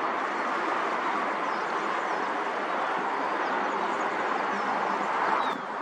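Steady jet engine noise from a Boeing 737-700's CFM56 turbofans as the airliner rolls along the runway at speed.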